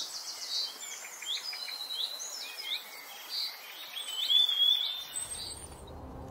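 Wild birds singing: a run of varied whistled notes, sweeping phrases and short trills. A low musical drone fades in near the end.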